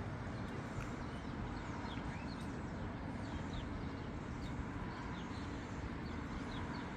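Outdoor ambience: a steady low rumble with faint, short high chirps scattered through it.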